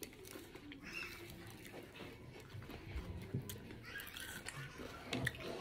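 Faint chewing with soft, irregular mouth clicks: someone eating a mouthful of food.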